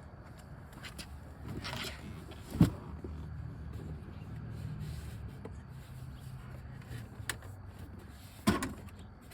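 Plastic clips of the Audi A4 B8's lower dash knee bolster panel being pulled loose: handling rustle and two sharp snaps, the first louder, about two and a half seconds and eight and a half seconds in, with a smaller click just before the second.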